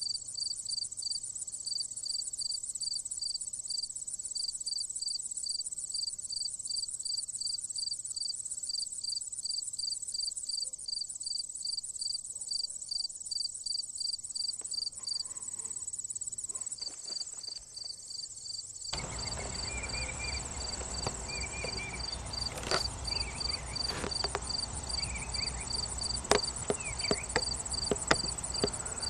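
Crickets chirping steadily: a high chirp repeating about three times a second over a continuous higher trill. About two-thirds of the way through, rustling and scattered knocks of the camera being handled and moved come in underneath.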